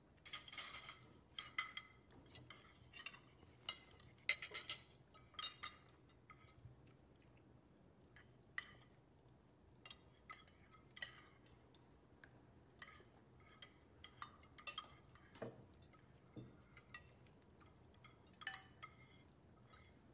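Cutlery clinking against plates and dishes during a meal: scattered light clinks and taps, busiest in the first six seconds, then sparser.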